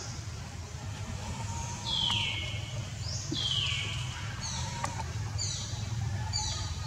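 Bird calling with a series of high, falling chirps: two longer ones, then shorter paired notes about once a second. A steady low rumble lies underneath.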